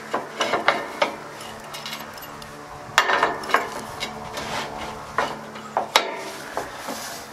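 Metal clinks, knocks and scraping as the round steel coolant-tank cap on an M24 Chaffee's rear engine deck is closed and its wire clasp and chain are worked by hand. Sharp knocks with short ringing come at uneven intervals, the loudest about three seconds in and again near six seconds.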